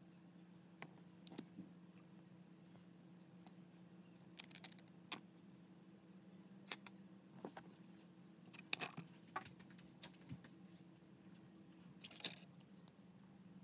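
Scattered light clicks and taps, singly and in small clusters, over a faint steady low hum.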